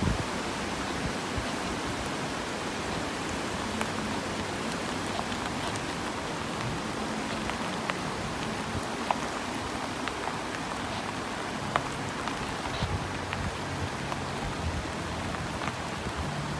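Steady rushing of a rocky mountain river, an even hiss with occasional faint ticks. In the last few seconds the low hum of a Suzuki Jimny JB74's engine comes in under it as the car climbs out of the river.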